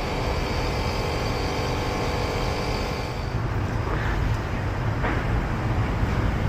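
Actron air conditioner running: a steady mechanical hum and rumble of the outdoor unit's compressor and fan. A thin high tone in it stops about halfway through.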